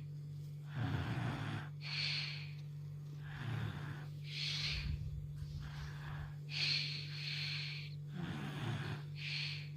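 A small child snoring in sleep: a low rattling snore alternating with a hissing, wheezy breath, about four breaths.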